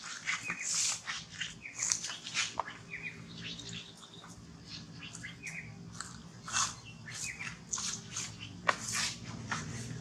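Long-tailed macaques giving short, high-pitched squeaks and chirps, scattered irregularly, with a few sharp clicks and a faint low steady hum underneath.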